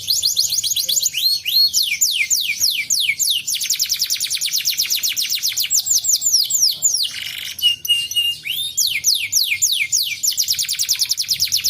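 Domestic canary singing continuously in fast rolls of rapidly repeated down-slurred whistled notes. About two-thirds of the way through comes a brief buzzy note, then a short run of steady, level notes before the rapid rolls resume.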